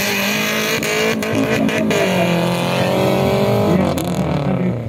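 Off-road race vehicle's engine running under throttle, its pitch sagging and then rising again near the end, with a few sharp clicks about a second in.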